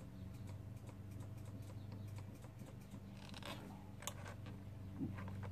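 Faint, scattered light clicks and taps of hands working at a scooter's hydraulic brake caliper and its bleeder valve, with a brief rustle about three seconds in and one sharper click about a second later. A steady low hum runs underneath.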